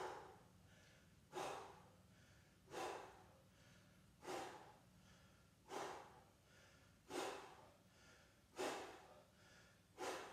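A man breathing out hard and sharply in a steady rhythm, about one breath every second and a half, with each breath timed to a repetition of an abdominal toe-tap crunch; the breathing of hard exercise.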